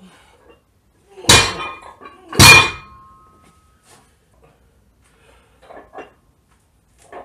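A 42 kg plate-loaded iron dumbbell dropped in a failed lift, crashing down twice about a second apart. The second crash is the louder, and the iron plates ring briefly after it.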